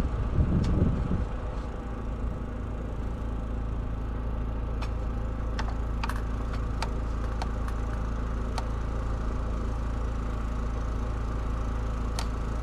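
Steady hum of an idling engine, with scattered light clicks and taps.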